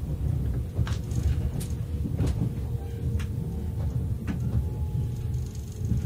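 Running noise inside a 485-series limited-express train car: a steady low rumble with a few faint, irregular clicks.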